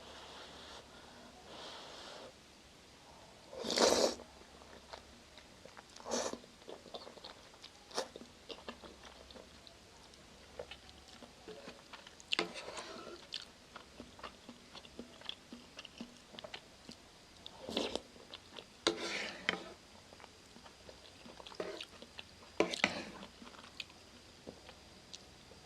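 Close-miked eating sounds of a person chewing a Shin Ramyun noodle soup with shrimp and egg: many small wet mouth clicks, broken by about six short, louder bursts of biting and slurping.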